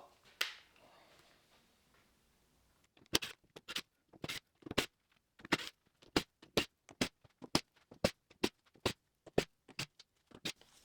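Screws being taken out of a template screwed to a plywood workpiece: after a short pause, a quick run of about twenty short, sharp clicks, a few a second, stopping near the end.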